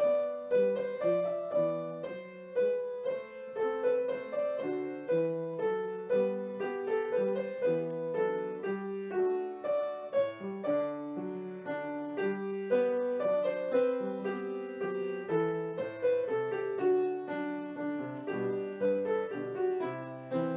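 Piano music: a steady stream of melody notes over chords, each note struck and dying away.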